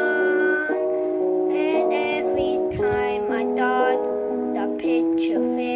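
A child singing a gospel song over instrumental backing music, holding a long note at the start and then singing short phrases of the next line.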